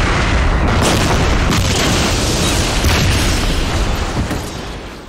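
Film sound effects of a series of explosions: a heavy, continuous rumble with a few sharp blasts in the first three seconds, dying away over the last second.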